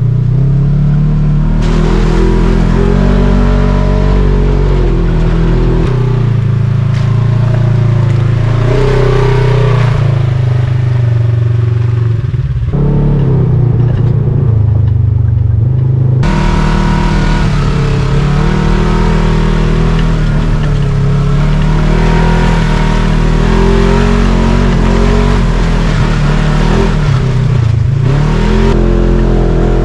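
Polaris RZR 1000 four-seat side-by-side's twin-cylinder engine running under way, heard from on board. Its pitch rises and falls with the throttle.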